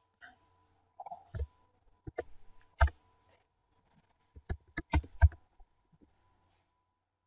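Sharp clicks of a computer mouse and keyboard keys, in three short clusters, over a faint steady hum.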